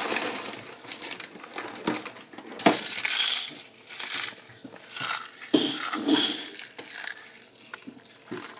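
Food containers and kitchen items being picked up, moved and set down on a table: irregular knocks and short rustles.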